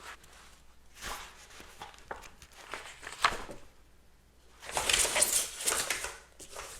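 Paper rustling as a book is handled and its pages turned: short rustles, a sharp tap about three seconds in, then a longer, louder rustle after about five seconds.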